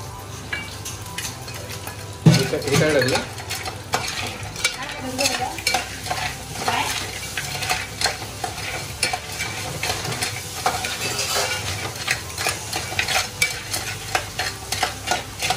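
Food frying and sizzling in a pan while a spoon stirs it, giving repeated scrapes and clatters against the pan. There is a sudden louder burst about two seconds in.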